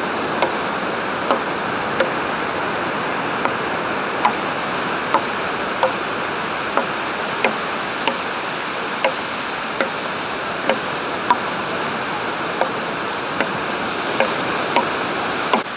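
Steady rush of sea surf breaking on the beach, with sharp ticks about every three-quarters of a second, in step with a walking pace.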